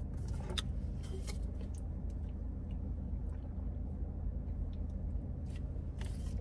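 Steady low hum inside a car cabin, with scattered small clicks and handling sounds as a plastic drink bottle is lifted and drunk from.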